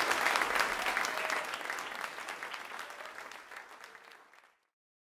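Audience applauding, the clapping fading out steadily over about four seconds.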